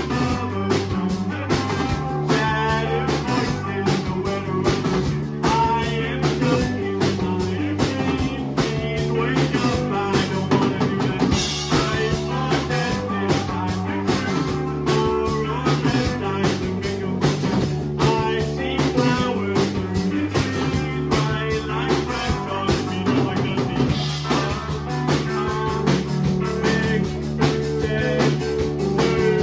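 Rock band playing live: electric guitars, bass guitar and drum kit keeping a steady beat, with a male singer singing over them.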